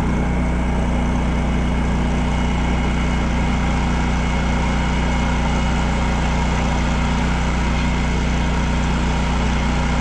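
Diesel engine of a crane service truck running steadily at idle, with a steady hum from the crane's hydraulics as the boom's pendant control is worked.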